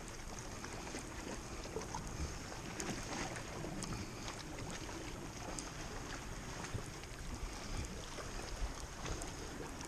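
Calm sea water lapping at the shore, with light wind on the microphone and a few faint scattered clicks.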